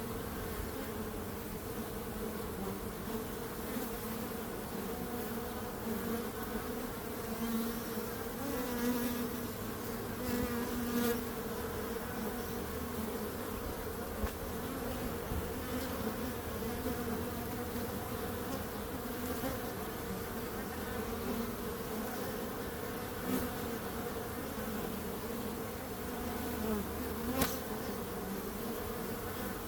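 Bees buzzing in a steady drone, swelling louder now and then as they pass closer, with a brief click near the end.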